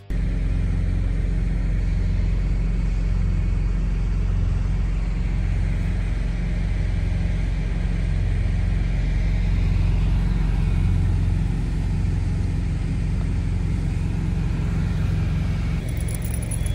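Semi truck driving at steady speed: a constant low engine and road drone.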